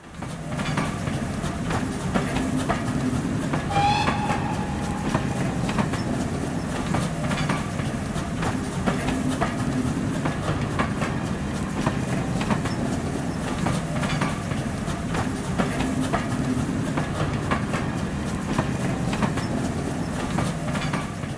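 Passenger train passing close by: a steady rumble with the clickety-clack of wheels over rail joints, and a brief high tone about four seconds in.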